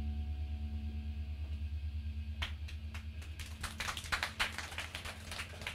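The last low note of a live rock band's song dying away as a steady, slightly pulsing drone. Scattered audience clapping starts about two and a half seconds in and grows denser.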